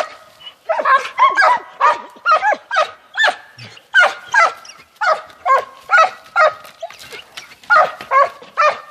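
Hunting dog barking steadily and rapidly at a sable it has chased to bay, with about two to three barks a second.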